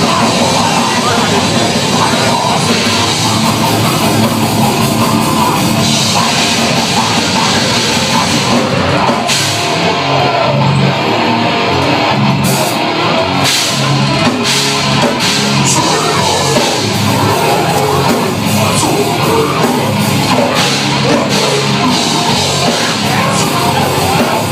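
Live death metal band playing at full volume, with distorted electric guitars, bass and drum kit, heard from within the crowd.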